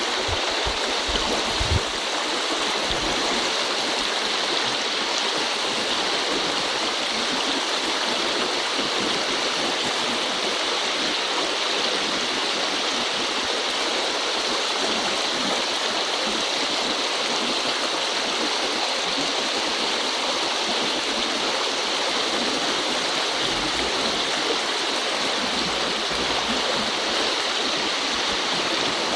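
Shallow river flowing steadily over a stony riffle: an even, unbroken hiss of running water. There are a few low thumps in the first two seconds.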